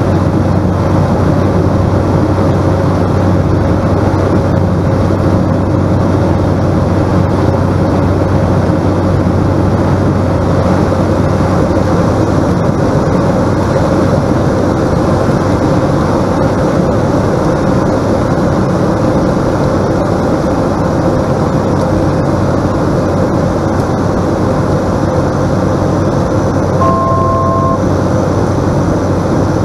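Cessna 208 Caravan's single PT6A turboprop engine and propeller giving a loud, steady drone, heard from inside the cockpit during the landing approach. Near the end a brief two-note electronic tone sounds for about a second.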